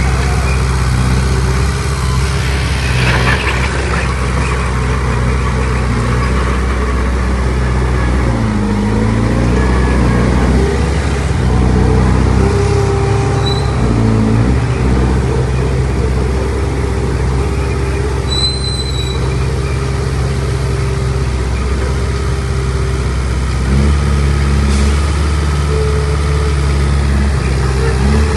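Heavy diesel earthmoving machinery running under load, the engine pitch rising and falling a few times as it is throttled up and down, with a couple of brief high squeaks.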